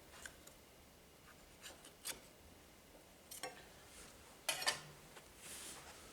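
A new planer knife and its clamping wedge being slid into the slot of a Multico CPT planer thicknesser's cutter block: faint metal scrapes and small clicks, a few scattered, with the loudest cluster of clicks about four and a half seconds in.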